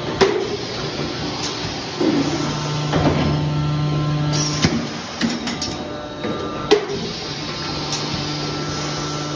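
Factory-floor machinery noise: a steady mechanical hum, with a low drone that drops out about halfway through and comes back, and a sharp knock every second or two.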